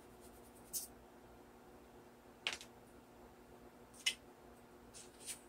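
Chalk rubbed across the back of a paper sheet in about five short, scratchy strokes, over a faint steady hum.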